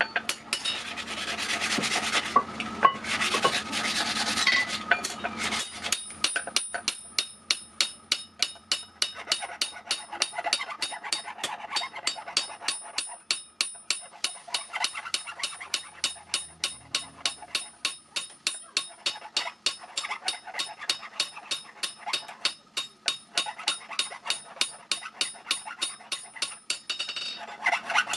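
Rhythmic rasping strokes of hand abrasion on a steel knife blade cut from a clutch plate, about three strokes a second, with a thin high ring from the metal. The strokes are denser and louder in the first few seconds.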